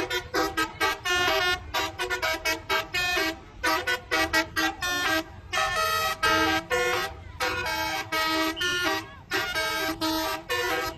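Bus 'telolet' horn: a multi-trumpet air horn playing a quick melody of short, bright notes in bursts, with brief breaks between runs.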